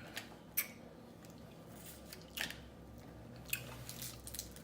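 Blue crab shell being cracked and pulled apart by hand: about four short, sharp cracks spread through the few seconds, with faint eating sounds between.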